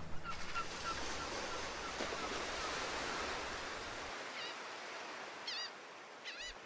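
Sea ambience: a steady wash of waves, with seabirds calling, first a run of quick small chirps and later a few short sweeping cries. A low hum underneath cuts out about four seconds in.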